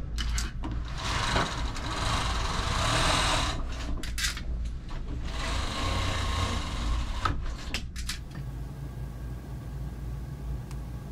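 Rustling and handling noise in two stretches of a few seconds each, with a few sharp clicks and knocks, as someone climbs into a capsule bed.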